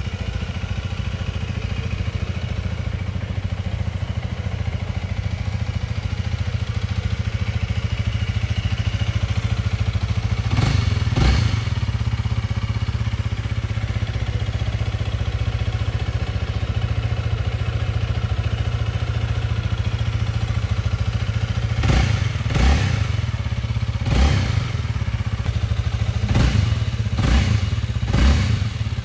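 Honda Rebel 300's single-cylinder engine idling steadily, with two quick throttle blips about eleven seconds in and six more spread over the last seven seconds.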